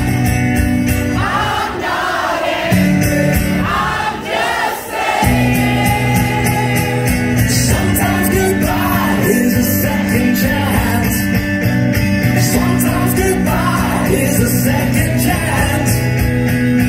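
Live acoustic performance: a man sings over a strummed acoustic guitar. The guitar drops out for a moment about four to five seconds in, then comes back in.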